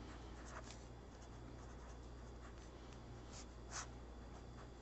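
Felt-tip pen writing numbers on lined notebook paper: faint, short scratches of the pen tip on the page, one stroke a little louder near the end. A low steady hum runs underneath.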